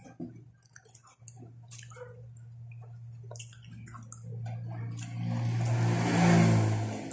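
A motor hum that swells over a few seconds, with a rushing noise at its loudest, then stops.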